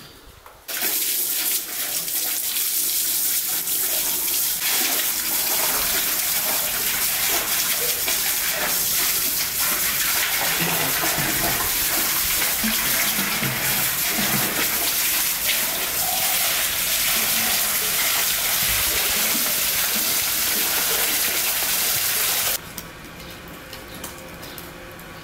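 Water running steadily and splashing, starting about a second in and cutting off suddenly near the end.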